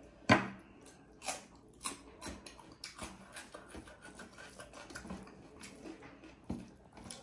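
Close-miked hand-eating sounds: fingers mixing rice, buffalo meat and dal on a steel plate, with chewing and small wet mouth clicks. A sharp click just after the start is the loudest sound.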